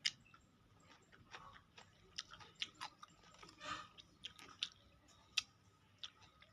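Close-mic chewing of food, faint, with scattered crisp crunches and mouth clicks at irregular intervals.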